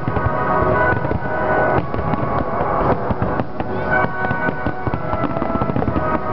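Fireworks exploding and crackling in quick, dense succession as a display barrage of shells bursts overhead.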